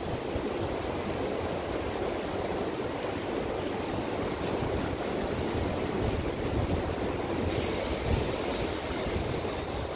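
Wind rumbling on the microphone over shallow seawater washing at the shore, with no voice. About seven and a half seconds in, a brighter hiss of water joins.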